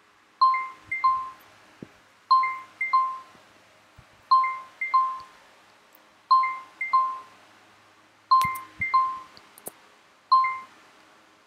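A computer countdown timer's alarm going off as the timer reaches zero, signalling that time is up: a pair of identical chimes about half a second apart, repeated every two seconds, with six rounds in all and a single chime at the end.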